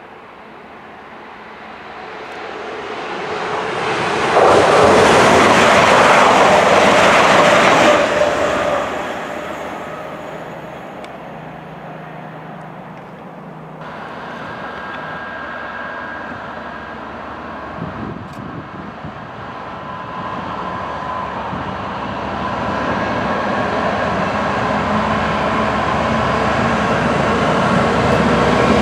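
A train passes close by at speed, a loud rushing noise that builds and peaks about four to eight seconds in, then fades. From about halfway a GBRf Class 66 diesel locomotive hauling tank wagons approaches, its two-stroke engine's hum growing steadily louder to the end.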